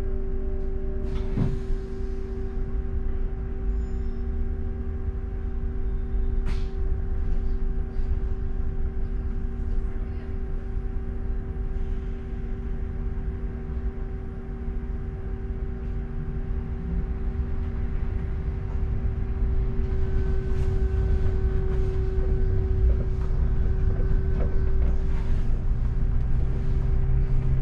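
London double-decker bus running, with a low engine and road rumble under a steady droning hum. Two sharp knocks sound in the first few seconds, and the rumble grows louder in the last third.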